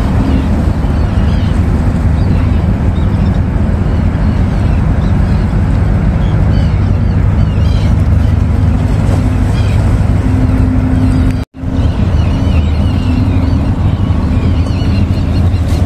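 Steady low engine drone of the container ship COSCO Shipping Danube and its assisting tugboats passing close by. The sound cuts out for an instant about eleven seconds in.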